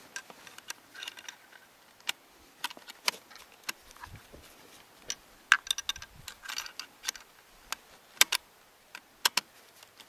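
Irregular light clicks and small rattles of hands handling a bolt-action rifle and its gear, with a few sharper clicks about halfway through and near the end.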